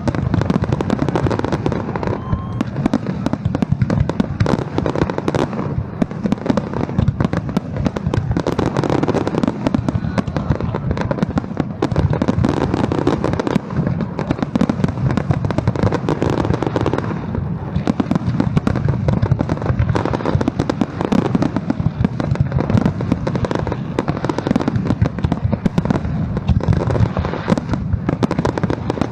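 Fireworks going off in a dense, unbroken barrage of bangs.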